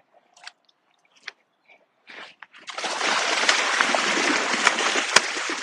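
Wels catfish striking at the surface: after a few faint clicks, a loud churning splash of thrashing water starts about halfway through and keeps going, with sharp slaps in it.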